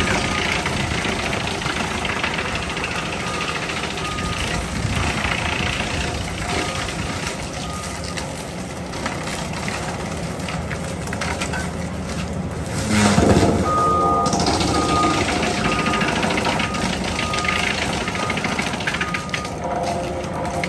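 Bobcat compact track loader running hard as its Angry Chipmunk disc mulcher head chews through brush and saplings, with a louder burst of grinding a little past the middle. After that the loader's reverse alarm beeps over and over.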